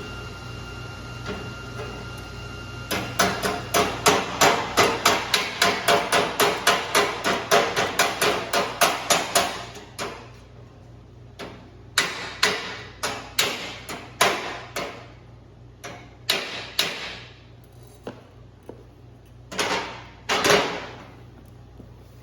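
Hammer striking sheet steel: a fast, even run of about four blows a second for several seconds, then slower, irregular blows.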